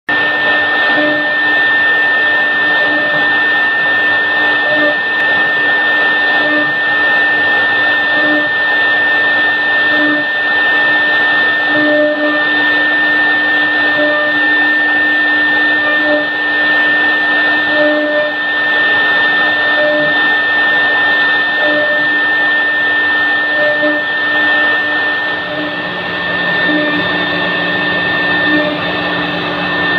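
Three-head CNC router spindles running at a steady high-pitched whine while the router bits engrave grooves into a wooden door panel. A lower hum under the whine swells and fades every second or two as the cut goes on, and a further low hum joins near the end.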